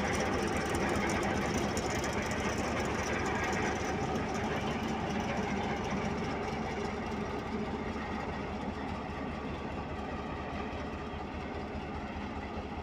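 Diesel-electric locomotive engine of a Pakistan Railways GMCU-15 idling steadily at close range, with an even pulsing rumble.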